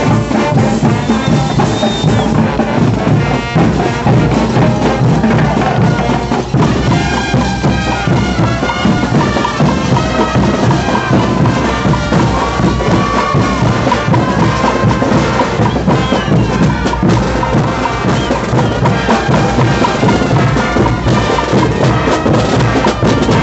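Bolivian brass band playing caporales dance music, with sustained brass over a steady, driving drum beat.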